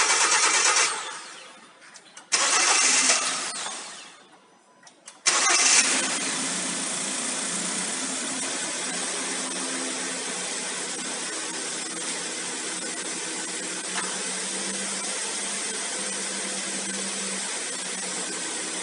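Freshly rebuilt Hyundai G4KD 2.0-litre four-cylinder petrol engine running, dying away twice in the first few seconds. It then starts abruptly about five seconds in and idles steadily.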